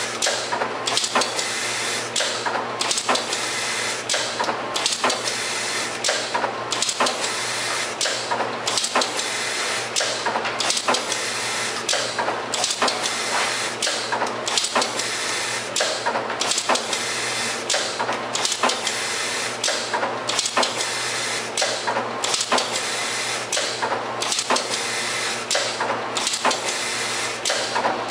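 Automatic syringe labeling machine running: a steady mechanical whir with hiss and a low hum, with clicks and clatter recurring about every second.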